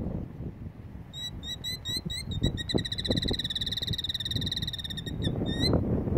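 Killdeer calling: a few short, high notes, then a rapid trill lasting about two seconds, then more short notes. This is the alarm trill that goes with its broken-wing distraction display, given to lure an intruder away from its nest.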